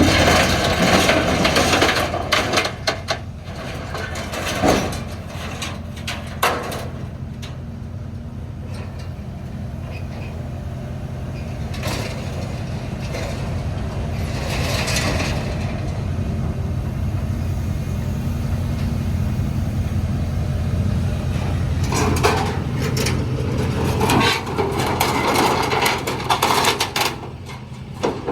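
Heavy engine running steadily, with clanks and knocks over it in the first few seconds and again for several seconds near the end.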